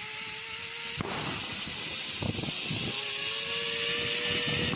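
Wind rushing over a phone's microphone, with a thin mechanical whine that rises slightly in pitch. The sound breaks off abruptly about a second in, and the whine returns near the end.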